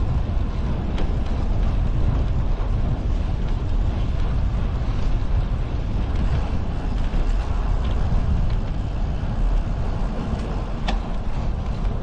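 Steady wind rumble buffeting the microphone of a camera on a moving bicycle.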